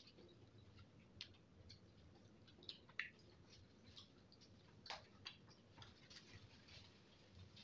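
Soft, irregular wet clicks and smacks of eating with the hand: mouth sounds of chewing and fingers squishing through sauced noodles, with a sharper click about three seconds in.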